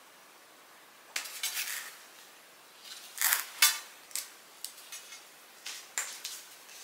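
Scissors snipping off a clothing tag: a string of sharp metallic snips and clicks, the loudest pair about three and a half seconds in, mixed with rustling of the tag and dress fabric.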